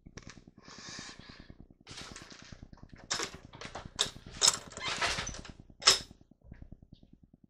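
Several short noisy bursts and sharp clicks, the loudest about six seconds in, over a fast, steady low ticking buzz.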